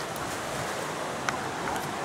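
Steady rushing of a stream, with a few faint clicks.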